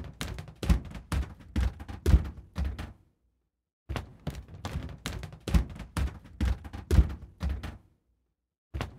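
Footsteps, about two to three steps a second, in runs of several seconds: the steps stop a little after three seconds in, start again after a second of silence, stop again near eight seconds, and resume just before the end.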